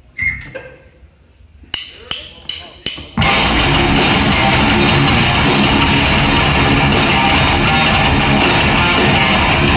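Live heavy metal band starting a song: after a fairly quiet opening, four quick, evenly spaced count-in hits on the drums, then distorted electric guitars, bass and drum kit come in together at full volume about three seconds in.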